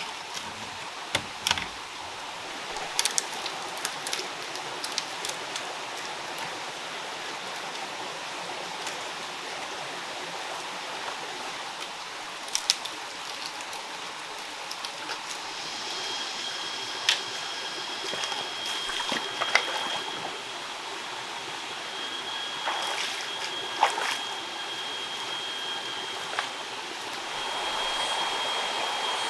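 Steady rush of stream water, with scattered sharp knocks and clicks. About halfway in, a steady high thin tone comes in and holds, with short breaks.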